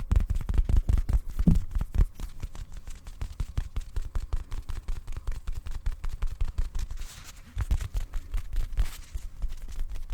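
Rapid tapping on a pillow close to the microphone: a quick run of soft, low thumps about five a second, heavier for the first two seconds and then lighter and quieter.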